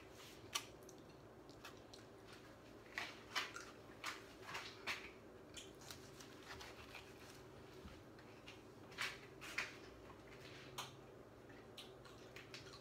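Faint, scattered crunches of a kitchen knife slicing through a nori-wrapped vegetable sushi roll on a board, over a low steady hum.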